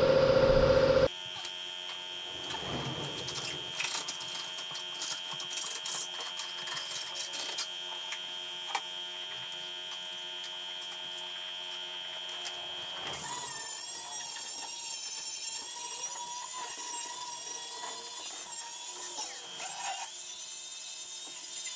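An angle grinder starts grinding rust and old metal from a car's lower quarter panel about 13 seconds in: a hissing high whine that wavers with the load. Before that there are quieter shop sounds, a steady high tone with scattered clicks, after a loud sound cuts off abruptly about a second in.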